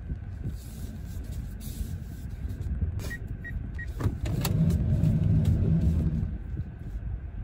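Car cabin with a steady low engine and road rumble. A little after three seconds in come three short electronic beeps, then a sharp click. A small electric motor then hums for nearly two seconds before stopping.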